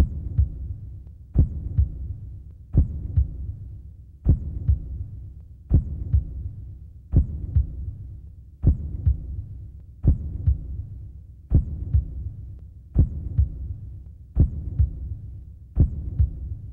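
Slow heartbeat sound effect: paired low thumps, lub-dub, repeating about every second and a half, each pair fading away before the next.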